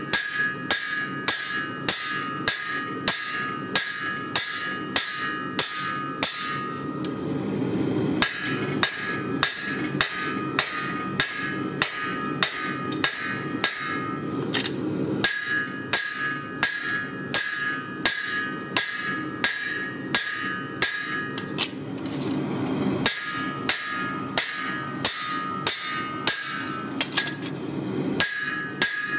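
Hammer blows on red-hot lawnmower-blade steel on an anvil, about two a second, each blow ringing off the anvil. The hammering pauses briefly twice, about seven and twenty-two seconds in.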